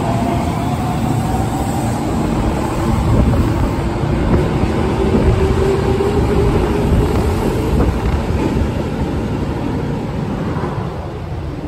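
Osaka Metro 22 series subway train running through an underground station without stopping: a loud, steady rumble of wheels on rail with a slowly shifting whine in it. It eases off near the end as the last car clears the platform.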